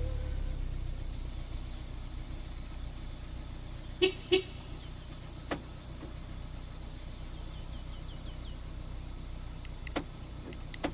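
2012 Kia Soul's engine idling steadily just after a remote start, with two short horn chirps in quick succession about four seconds in, the installed alarm system's signal, and a few light clicks later on.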